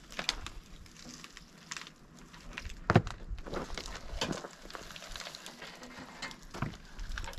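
Scattered clicks and knocks of parts and tools being handled during sawmill assembly, with one loud knock about three seconds in.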